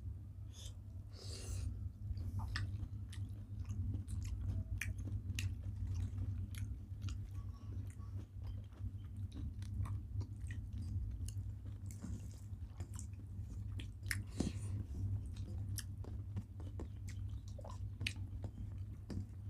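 Close-up chewing and lip-smacking of people eating a rice meal, with many small wet clicks and smacks scattered throughout, over a steady low hum.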